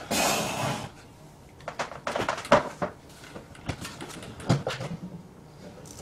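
A short hiss at the start, then a run of irregular clicks and knocks of plastic being handled as a power cord is unplugged and the snap-on lid of a plastic bucket is pried off.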